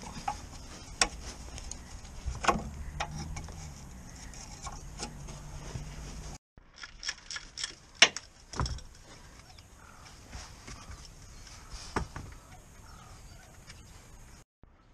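Scattered metallic clicks and knocks from hand tools on a car's underside, over a low steady hum. About halfway in, a socket ratchet clicks in quick runs, with one sharp knock among them.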